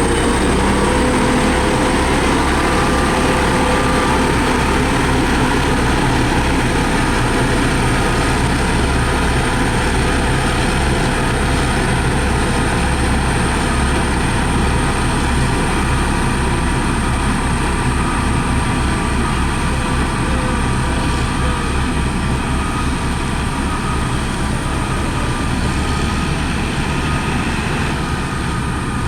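Diesel engine of heavy road-construction machinery (motor grader or road roller) running steadily at work, a continuous low rumble.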